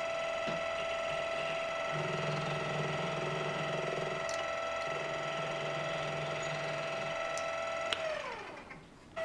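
Metal lathe running with a steady motor whine while a cutting tool finishes the edge of a small flywheel blank, a lower cutting sound coming and going. About eight seconds in the spindle winds down, its whine falling in pitch as it stops.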